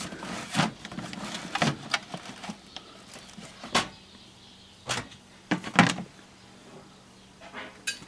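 Computer power supplies and sheet-metal parts knocking and clattering as they are shifted by hand in a plastic bin: a run of about seven or eight irregular sharp knocks, with a quieter stretch near the end.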